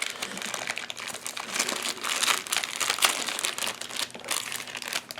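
Plastic packaging crinkling and rustling as accessories are handled and unwrapped, an irregular run of crackles.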